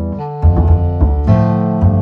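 Instrumental background music: keyboard chords over a bass line, with a new chord about every half second.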